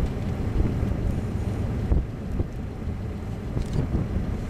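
Steady low roar of a violent EF5 wedge tornado, mixed with wind buffeting the microphone, with one louder gust about two seconds in.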